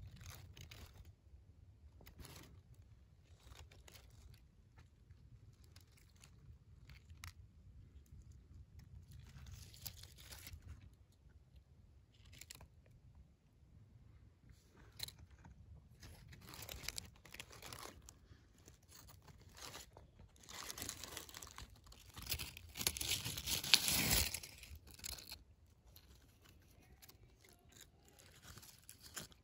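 Faint crackling and rustling of wet leaf litter, with a louder crinkly rustle lasting about three seconds near the end as a hand moves among the leaves.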